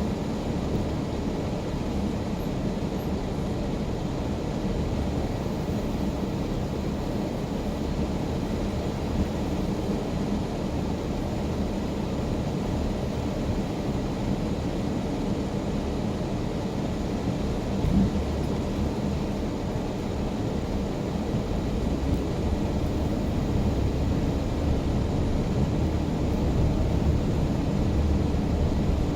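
Car driving through a snow storm: a steady road and engine rumble with a single knock about 18 seconds in, growing slightly louder near the end.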